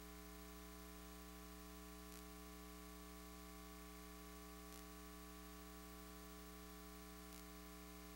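Near silence: a steady, unchanging electrical hum with faint hiss.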